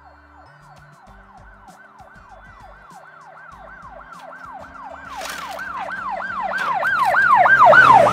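Electronic emergency-vehicle siren, a fast wail that falls in pitch and jumps back up about three times a second, growing steadily louder toward the end. A few faint clicks of plastic toys being handled.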